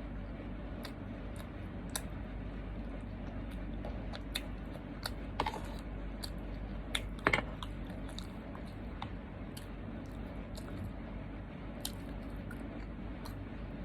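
A person chewing and biting food up close, with scattered small wet clicks and two louder bursts of crunching about five and seven seconds in.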